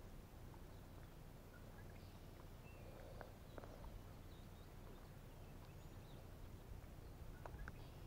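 Near silence: faint outdoor ambience, a low steady rumble with a few faint ticks and short high chirps.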